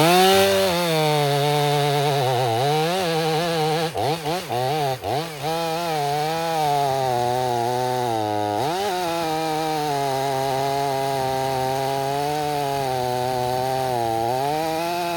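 Stihl two-stroke chainsaw running at high revs while a new saw is being broken in. It revs up at the start, and its pitch sags and recovers a few times, around four to five seconds in and again near nine seconds, before holding steady.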